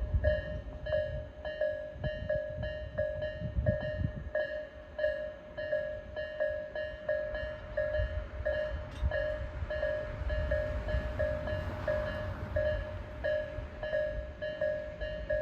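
Japanese level-crossing warning bells ringing in steady repeated strokes, two bells sounding at different tempos so their rhythms fall in and out of step. Beneath them a train rumbles past over the crossing.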